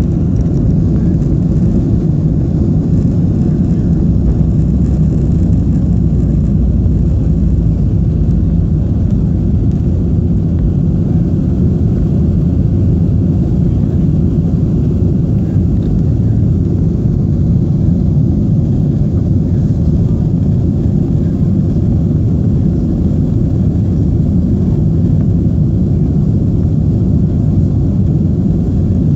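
Jet airliner cabin noise during the climb after takeoff: a loud, steady low rumble of the engines and rushing air, heard from inside the cabin.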